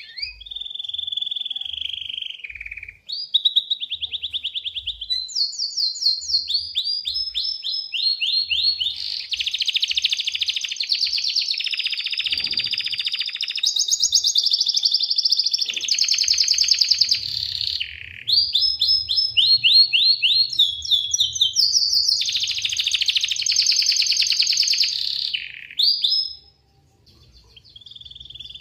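Domestic canary singing a long, near-continuous song of rapid trilled rolls and quick runs of repeated notes, breaking off briefly near the end before a short final phrase.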